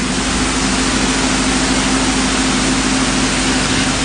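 Steady loud hiss with a low, even hum under it, cutting in suddenly at the start: constant machine or electrical background noise.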